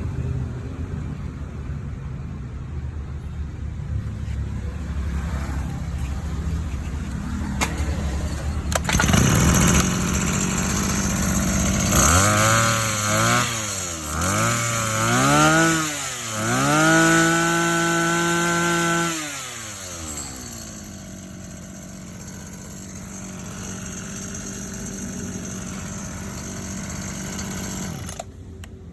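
Robin two-stroke brush cutter engine idling, picking up a little about nine seconds in, then revved in three quick blips, held at high revs for a couple of seconds, and let drop back to idle.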